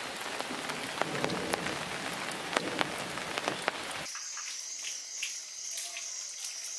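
Steady rain falling on pond water and foliage, with many distinct drops. About four seconds in it cuts abruptly to night insects, a steady high-pitched chirring.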